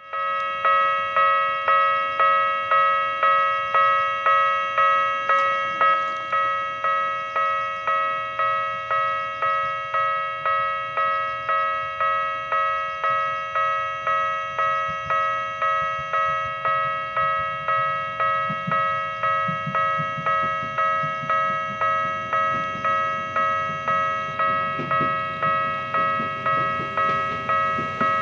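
Japanese level-crossing warning bell ringing steadily at a little under two dings a second, each ding a bright pitched tone that dies away before the next. In the second half, the low rumble of an approaching train grows beneath it.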